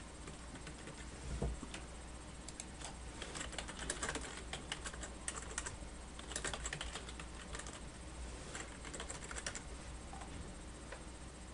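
Typing on a computer keyboard in quick bursts of keystrokes with short pauses between them.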